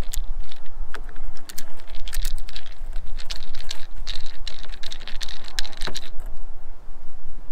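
Hand screwdriver turning screws into the mounting of an RVLock keyless entry handle on an RV door, giving a run of irregular clicks that thin out about six seconds in.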